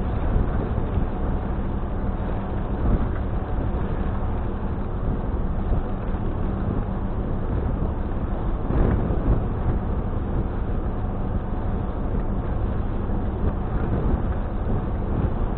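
Steady low engine drone with a continuous rushing noise over it, heard from inside a vehicle parked on the deck of a car ferry under way, with a slight swell about 9 seconds in.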